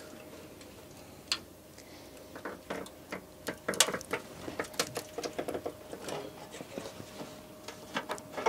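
Irregular clicks and knocks from a rusty steel front wing as it is pulled and flexed by hand to work it loose from its mounts, with a quicker run of clicks about halfway through.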